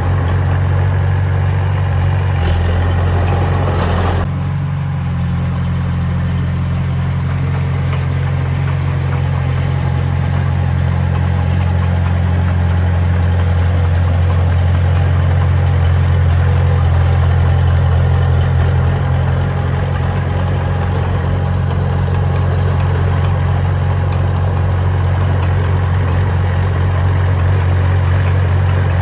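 Heavy-equipment diesel engine running steadily at low revs, with a clattering noise over it for the first few seconds that stops suddenly.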